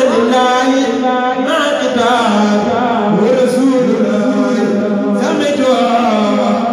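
A man's solo voice chanting through a microphone, holding long notes that waver and turn in pitch, in the manner of Mouride khassida recitation.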